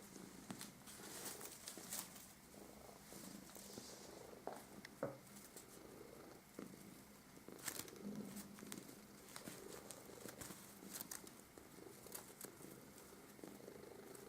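Domestic cat purring softly, with scattered faint rustles and clicks.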